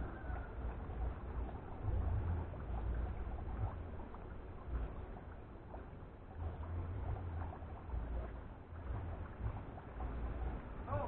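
Wind buffeting the microphone: an uneven low rumble that swells and fades in gusts.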